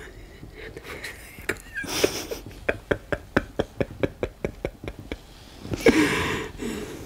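A man's voice without words, breaking into a run of short, rhythmic breathy pulses at about six a second, like convulsive sobbing or laughing. Near the end comes a loud, drawn-out breathy cry.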